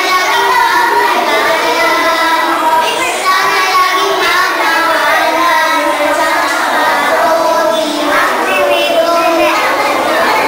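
A small group of young girls singing a song together.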